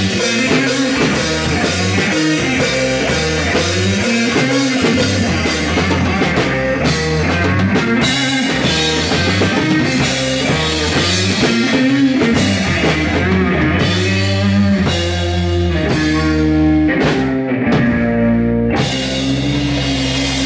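Live rock band playing loud: drum kit with crashing cymbals, electric guitar and bass. Near the end the cymbals drop out, and after a last hit a chord is left ringing, as at the close of the song.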